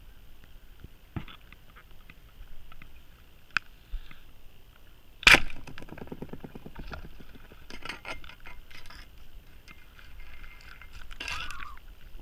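Speargun fired underwater: one sharp, loud crack about five seconds in, followed at once by a fast rattle of clicks for a second or two as the shaft strikes a peacock bass (tucunaré). Scattered clicks and knocks come before and after, with another burst near the end.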